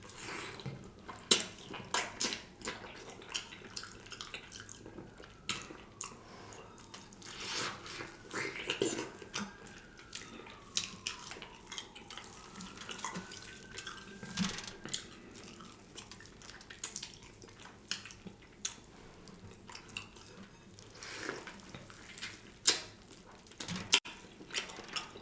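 Close-up eating sounds from a smoked turkey leg: wet smacking and chewing, with irregular sharp clicks as meat is pulled and torn from the bone.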